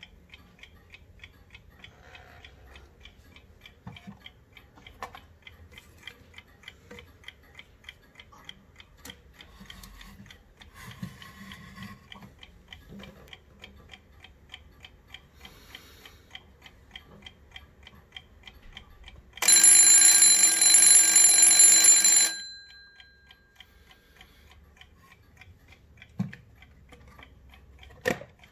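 Antique Junghans brass key-wind alarm clock ticking quickly and evenly. About two-thirds of the way through, its alarm bell rings loudly for about three seconds and stops, and the ticking carries on, with two short knocks near the end.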